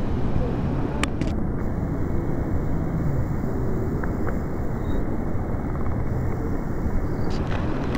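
Steady low rushing noise, with a faint click about a second in.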